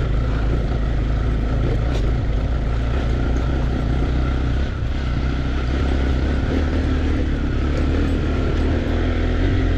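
Off-road motorcycle engine running steadily under way, at an even pitch and level throughout.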